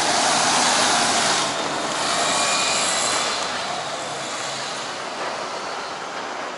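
A city bus driving past close by: engine and tyre noise at its loudest in the first second or so, then fading, with a car passing after it.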